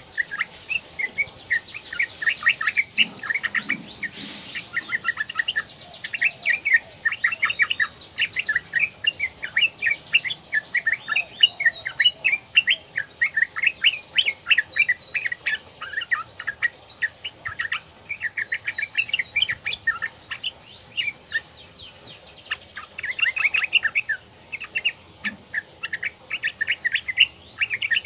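Yellow-vented bulbul, a young female by the uploader's account, calling in long runs of short, quickly repeated chattering notes broken by brief pauses.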